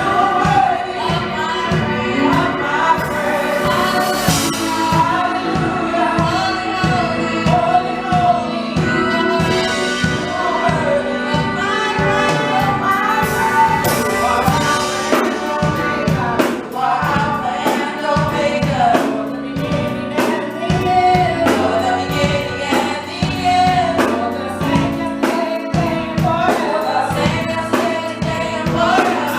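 Gospel praise team singing together with band accompaniment, several voices over a steady beat.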